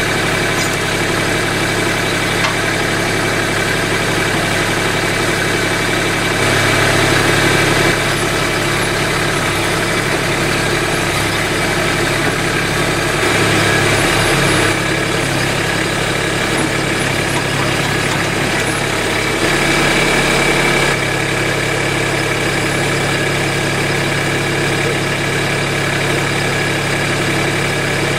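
Engine idling steadily, growing briefly louder three times.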